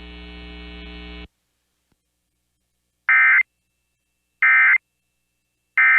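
Emergency Alert System SAME header for a Required Monthly Test: three short, identical bursts of digital data tones, about a second and a half apart. Before them a steady electrical hum cuts off a little over a second in, followed by silence.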